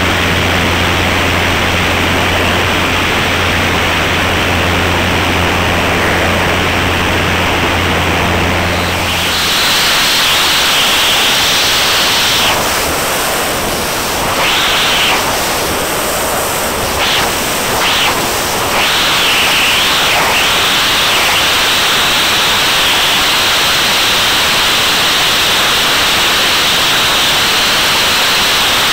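Loud rushing wind noise on a camera mounted on the tail of a Van's RV-8 in flight, with the steady low drone of the engine and propeller underneath for the first nine seconds or so. After that the drone drops out, leaving only the wind rush, which wavers and dips several times in the middle.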